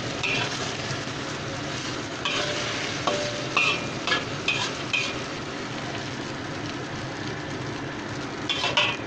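Instant noodles and egg frying in hot oil in a wok, a steady sizzle. A spatula scrapes and taps against the pan several times in the first five seconds and again near the end.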